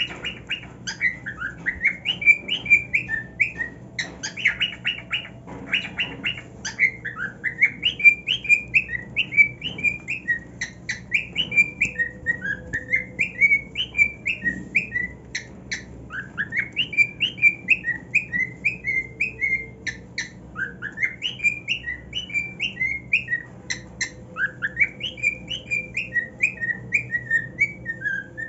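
Male cockatiel singing, repeating the same warbling phrase over and over, each a run of quick chirps and whistles that climbs and then falls.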